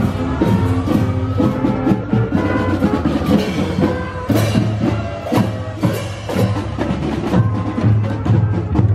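Marching band playing: trombones and other horns holding notes over a steady beat of snare and bass drum, with cymbal crashes.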